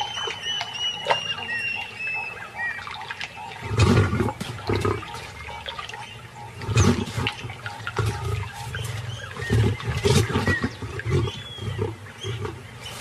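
Lioness snarling and growling in several loud, rough bursts, starting about four seconds in and recurring every few seconds, as she faces crocodiles at the water's edge.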